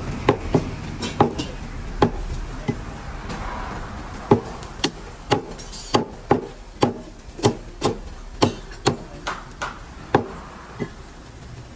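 Heavy meat cleaver chopping through mutton ribs on a wooden log chopping block: a string of sharp chops, about two a second, with a short pause from about 2 to 4 seconds in.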